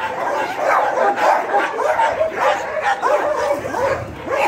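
Dogs barking and yipping, many short calls overlapping almost without a break.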